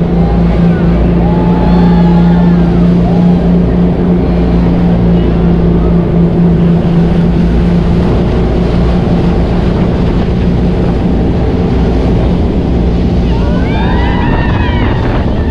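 Water craft engine running steadily at speed, a loud continuous drone with wind on the microphone.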